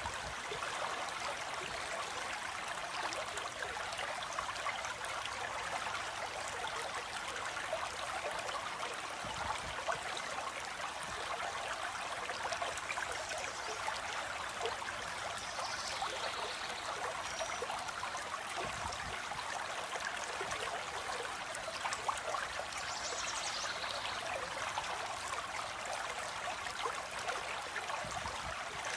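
Stream water flowing and trickling steadily, with a few faint high bird calls over it partway through.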